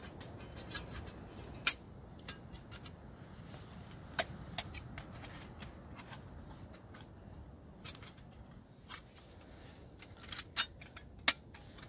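Stainless-steel panels of a Bushbox Mini folding stove being slotted and clipped together by hand: scattered sharp metallic clicks and clinks, about ten of them at irregular intervals, two of them louder than the rest.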